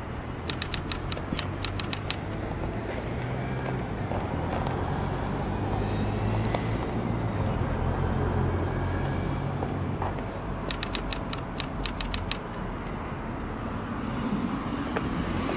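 Town-centre street ambience with a steady low traffic hum, broken twice by a short run of rapid sharp clicks, about five a second: once near the start and again about two-thirds of the way through.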